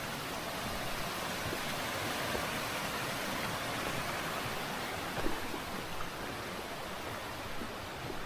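Steady rushing of a mountain stream, an even hiss, swelling slightly in the middle, with a few faint knocks.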